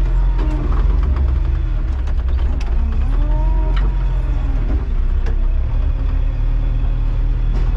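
John Deere tractor engine running steadily under load. A whine rises and falls in pitch about three to four seconds in, with a few sharp clicks and knocks.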